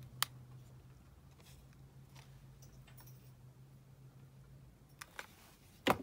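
Sparse small clicks and taps of paper and craft pieces being handled on a desk, with a sharper click near the end, over a faint low steady hum.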